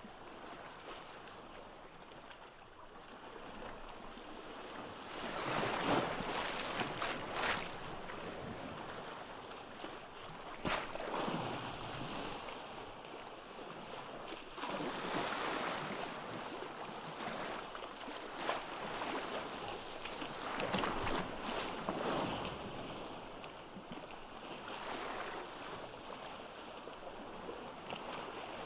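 Ocean waves breaking on a beach, the surf swelling and washing back in repeated surges every three to five seconds.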